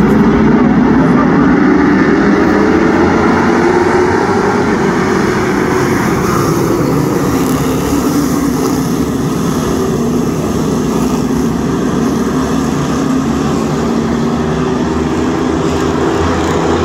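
A field of dirt track race cars running together around the oval, their engines blending into one loud, steady drone whose pitch wavers as cars accelerate and ease off through the turns.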